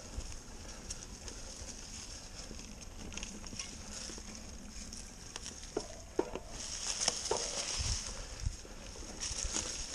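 Mountain bike tyres rolling over a dry, leaf-covered dirt trail, with the bike rattling and clicking. A few sharp knocks come over bumps about six to seven and a half seconds in.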